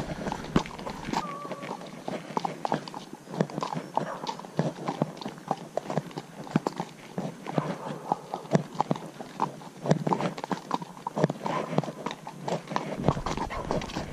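Hoofbeats of a ridden horse on a dirt forest track, heard from the saddle: a quick, uneven run of clops, several a second, going on throughout.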